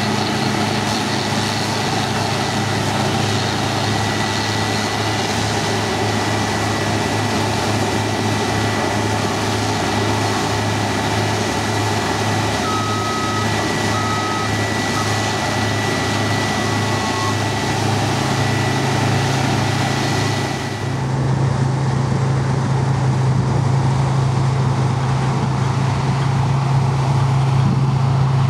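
New Holland combine harvester running while it unloads grain through its auger into a trailer alongside: a steady machine drone with a thin high whine, and two short beeps about halfway through. Near the end it cuts abruptly to a duller, lower steady engine hum.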